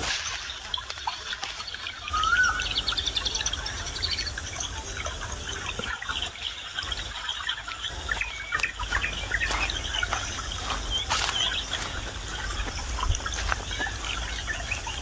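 Forest birds calling and chirping, with short whistled glides and a rapid high trill early on, over the crackle of dry leaves underfoot and a low rumble.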